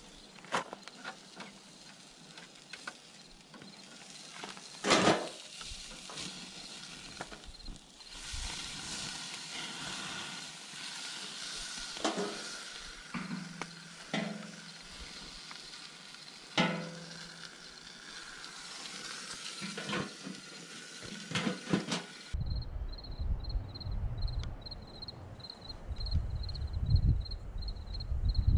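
An even hiss with scattered clicks and knocks for most of the stretch. Then it changes abruptly to a cricket chirping steadily, about three chirps a second, over low wind rumble.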